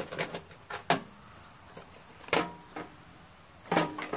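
Three sharp knocks and clatters of plastic and metal, about a second and a half apart, as the red plastic recoil starter housing of a Briggs & Stratton Quantum mower engine is worked loose and lifted off.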